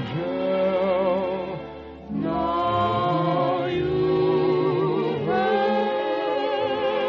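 A choir singing long held notes with vibrato. The voices move to a new chord about two seconds in and again about five seconds in.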